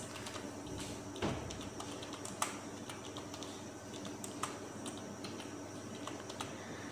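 Computer keyboard being typed on: faint, irregular key clicks as a short phrase is entered, with a few louder keystrokes among them.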